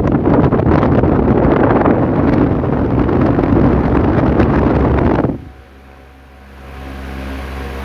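Arge Twister 50 cm 140 W wall fan running: its airflow hits the microphone as a loud rushing noise that cuts off sharply about five seconds in, leaving the fan motor's steady hum.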